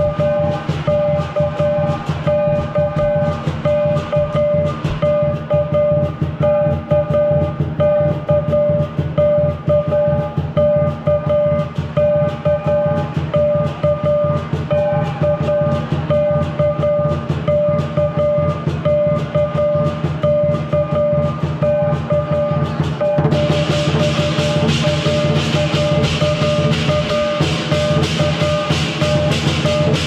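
Lion dance percussion ensemble playing live: a large Chinese barrel drum keeping a fast, steady beat, with clashing cymbals and a ringing gong. The playing grows louder and brighter about three-quarters of the way through.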